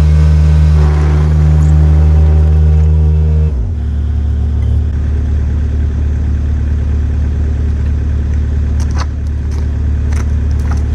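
Excavator engine running at high revs, then throttling down to a lower, steady idle about three and a half seconds in, with a few sharp clanks near the end.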